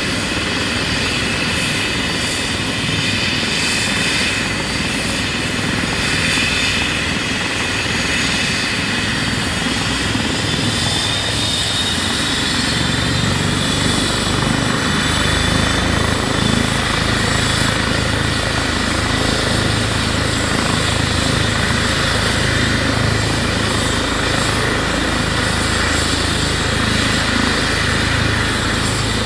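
Airbus (Eurocopter) EC135 T2+ helicopter running on the ground with its main rotor turning: the twin Pratt & Whitney PW206B2 turboshafts give a steady high whine over the rotor noise. About halfway through, a deeper rotor beat grows stronger as the machine spools up toward takeoff.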